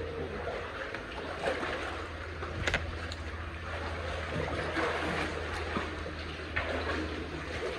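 Shallow water sloshing and splashing under steps wading through a flooded tunnel, with one sharp click near three seconds in.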